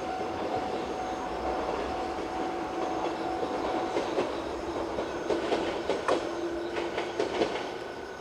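Train running past at a level crossing: a steady rumble with a held whine, and wheels clacking over rail joints in the second half.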